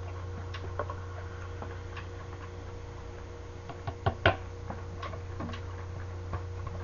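Beer poured from a large plastic bottle into a glass mug: faint pouring and fizzing with scattered light clicks and two sharper clicks about four seconds in, over a steady low hum.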